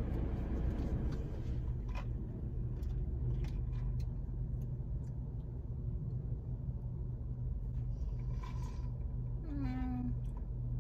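Steady low hum of a car's idling engine heard inside the cabin, with a few light clicks in the first half. A brief whine-like note sounds a little after nine seconds.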